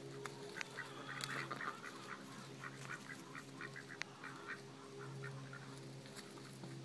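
Faint quacking of farm ducks: a quick series of short calls, strongest in the first half, over a low steady hum.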